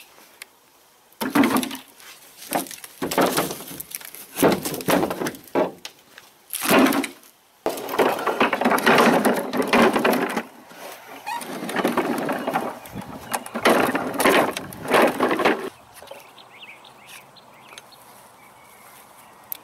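Dry pine wood and bark being handled and broken: a run of cracking and crunching noises, separate at first and then coming thick and fast. They stop about four seconds before the end.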